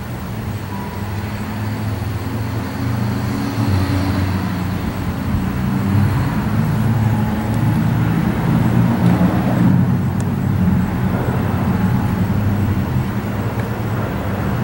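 Low engine rumble that builds over the first several seconds and then holds steady.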